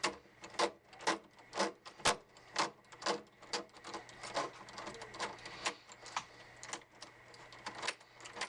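Sharp metallic clicks and taps, about two a second and unevenly spaced, the loudest a little after two seconds in, from hand work on a door lock's metal parts.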